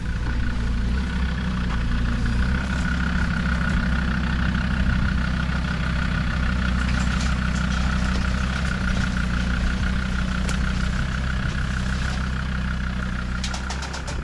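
A 4x4's engine running steadily at low revs, with a few light clicks near the end.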